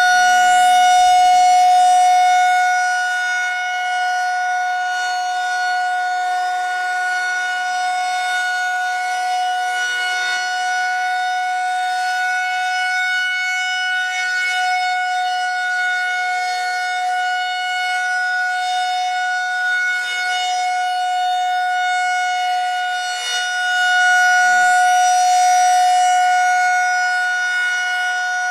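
Federal Signal 2001-130 rotating electromechanical siren sounding its steady single tone during a monthly test. The pitch holds level while the volume swells and fades as the horn turns, loudest near the start and again about 24 seconds in.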